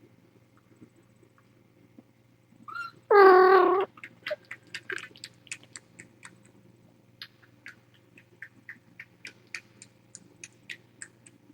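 A cat meows once, loudly, about three seconds in; then a kitten suckles on a feeding bottle's nipple, making quick wet clicking sucks, about three a second.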